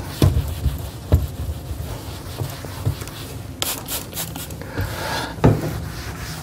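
Cloth wiping and rubbing on kitchen cupboard doors, with dull knocks as the doors are bumped, the loudest about five and a half seconds in. A few quick hissing squirts of a trigger spray bottle of general-purpose cleaner come about three and a half seconds in.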